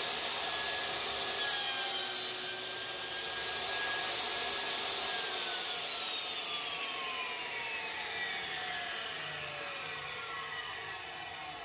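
Table saw running with a steady whine as the sled carries the wood block through the blade, then switched off about five seconds in: the motor's whine falls steadily in pitch as the blade spins down.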